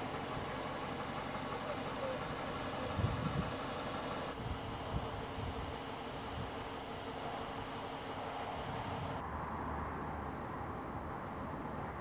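Dodge Charger patrol car's engine idling with a steady hum, with a few low thumps about three seconds in.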